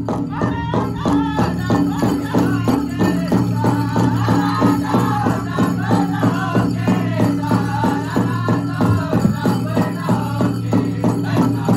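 Powwow drum group singing a chicken dance song over a fast, steady drumbeat, about four beats a second, with the jingle of the dancer's leg bells.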